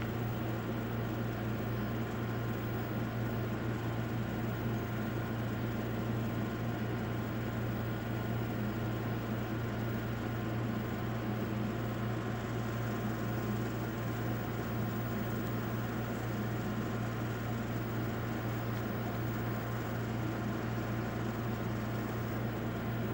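Steady low machine hum with an even hiss underneath, unchanging throughout.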